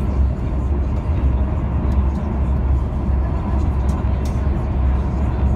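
Steady low rumble and running noise of a moving vehicle, heard from inside the cabin.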